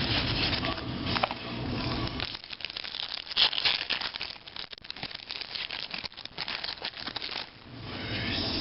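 Crinkling and fine clicking of a foil trading-card pack wrapper and cards being handled, a dense irregular run of crackles lasting several seconds from about two seconds in.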